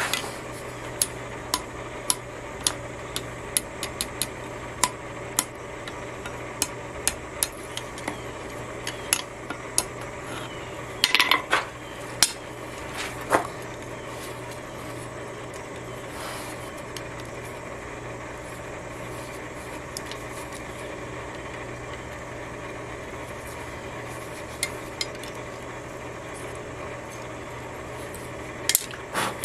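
Hammer on anvil working a small hot metal spiral pendant: light, irregular metallic taps, with a few harder strikes about a third of the way in and another near the end, and long gaps between. A steady low hum runs underneath throughout.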